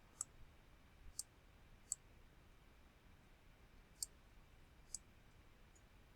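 Faint, sharp computer mouse clicks, about five of them at irregular intervals, over near-silent room tone.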